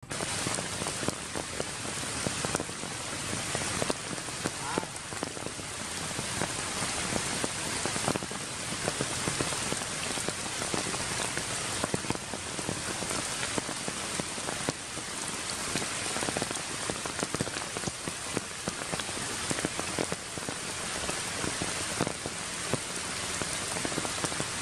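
Steady rain falling, with many sharp hits of individual drops scattered through it.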